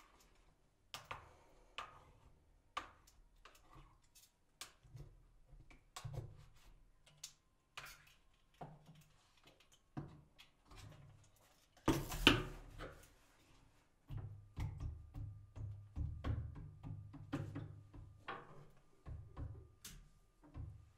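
Scattered light clicks and knocks from handling photographic prints and plastic developing trays in a darkroom, with one louder knock about twelve seconds in followed by a few seconds of low, dense bumping.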